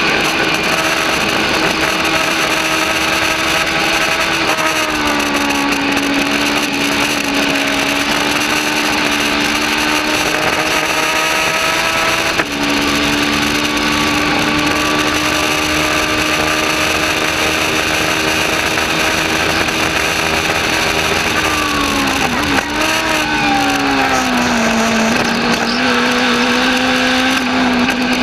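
Legends race car's Yamaha four-cylinder motorcycle engine held at high revs, heard from inside the cockpit with wind and road noise. Its pitch drops about four seconds in, jumps up suddenly about twelve seconds in, then dips and falls as the car slows into a corner near the end.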